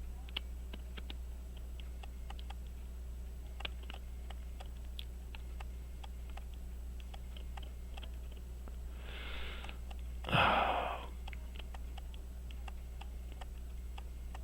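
Faint, irregular small metallic clicks of a watch screwdriver and tiny parts being handled on a pocket watch movement, over a steady low hum. About ten seconds in there is a brief hiss, preceded by a fainter one.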